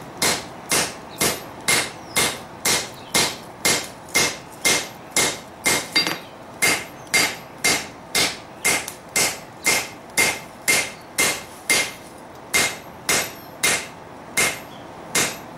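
Hand hammer striking a red-hot steel plate on an anvil, steady blows about two a second, each with a short metallic ring, as the plate's edge is bevelled.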